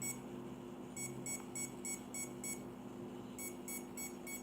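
A model helicopter with its throttle at zero gives rapid high-pitched beeps, about four a second, in groups of five or six with a pause of about a second between groups. The owner calls it constantly beeping and is unsure whether it is normal.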